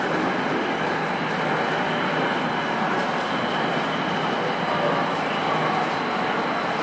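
Steady, even machinery noise of a snack production line running in a factory hall, with a faint high steady whine.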